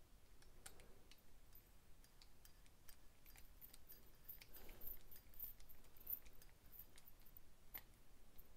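Faint, scattered small clicks and ticks of a precision screwdriver turning the small body screws into the handle of a CMB Blaze folding knife, with one sharper click near the end.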